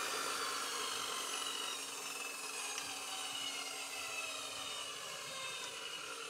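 A motor-driven tool whirring with several tones at once, all slowly falling in pitch while the sound gradually fades, as a tool does when it winds down.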